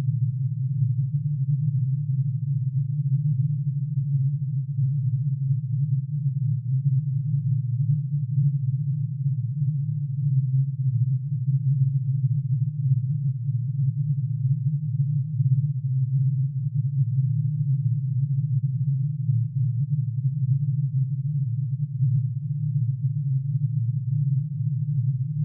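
A steady low synthesized hum made of many sine waves added together, each one a line of plutonium's atomic emission spectrum shifted down into the audible range.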